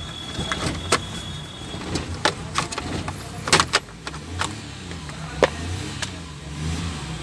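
Sharp metallic clicks and knocks of steering-wheel horn-contact parts being handled, scattered irregularly, the loudest about three and a half seconds in, over a steady low hum.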